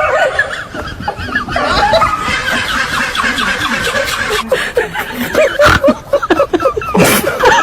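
People laughing and giggling, in short repeated bursts of laughter.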